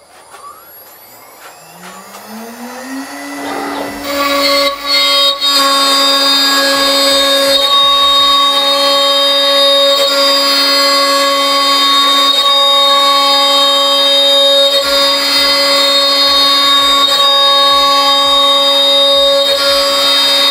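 CNC router spindle spinning up to 18,000 RPM with a rising whine, then a 1/4-inch two-flute upcut finishing bit plunging into and cutting a wood panel at 200 inches a minute and 0.25 inch depth. The cut is a loud, steady, ear-piercing, teeth-clenching scream with a strong high whine.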